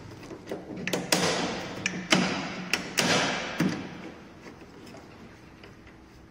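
Cult Smartbike C1 seat post and seat slider being worked by hand during assembly: a run of knocks and clicks, several followed by short scrapes, then quieter after about four seconds.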